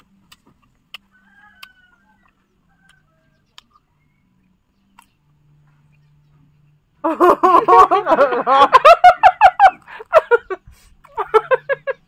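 Chickens squawking and clucking loudly, a rapid run of rising-and-falling calls that starts about seven seconds in and goes on for about four seconds, with a shorter burst near the end; before it only faint scattered clicks.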